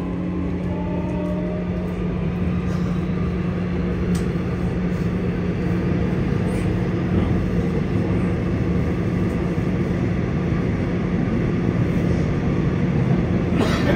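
Seoul Metro Line 6 electric train with Mitsubishi IGBT-VVVF traction, heard from inside the car while running between stations: a steady rumble of wheels on rail with a steady low hum, growing slightly louder. A brief clatter comes near the end.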